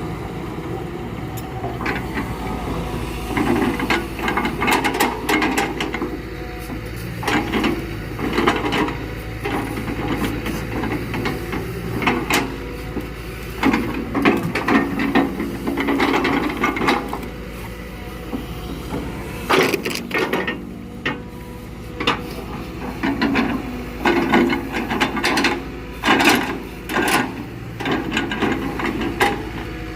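Excavator engine running steadily while rubberwood logs knock, clatter and scrape against each other and the machine as they are lifted and moved, in irregular bursts of loud thuds.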